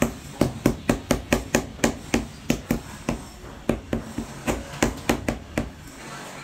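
Rubber mallet tapping a large floor tile down into its mortar bed to seat and level it: a quick run of sharp knocks, about four a second, with a short pause halfway and stopping shortly before the end.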